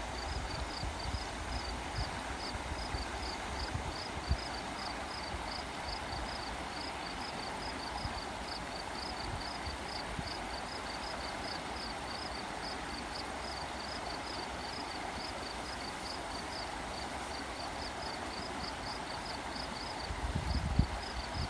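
Steady rush of flowing water, with a high short chirp repeated evenly about three times a second throughout. Low thumps of wind on the microphone near the start and again near the end.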